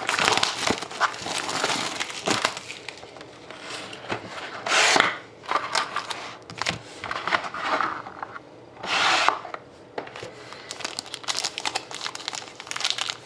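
Hands opening a trading-card box and its foil-wrapped pack: crinkling and tearing of plastic and foil wrapping, with many small clicks and two louder half-second rustles about five and nine seconds in.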